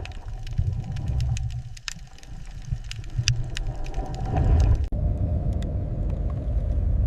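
Steady low engine-like rumble with many scattered clicks and ticks over its first part. About five seconds in it cuts abruptly to a steadier rumble with a faint hum.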